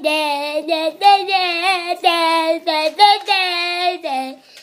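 A child singing a string of held, wavering notes, stopping shortly before the end.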